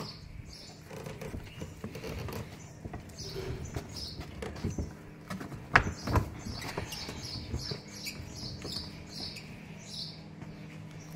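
Loose hay rustling as it is forked and shaken out with a metal hay fork, with a sharp knock of the fork about halfway through. Small birds chirp repeatedly in the second half, two or three chirps a second.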